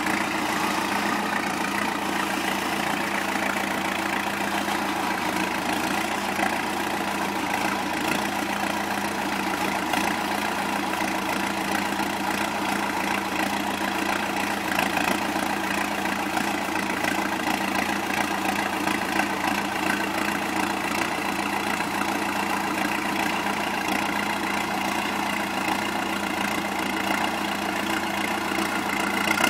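Cummins 4BT four-cylinder turbo diesel in a Jeep YJ running at low, steady revs, with no revving, as the Jeep crawls a rock ledge.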